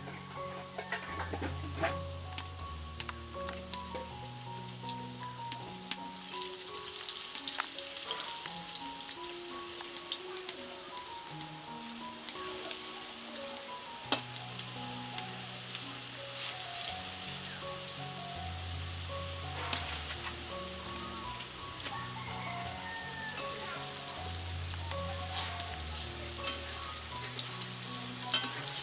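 Pumpkin pieces frying in oil in a steel karahi: a steady sizzle, with a metal spatula scraping and clicking against the pan as they are stirred. Soft background music plays underneath.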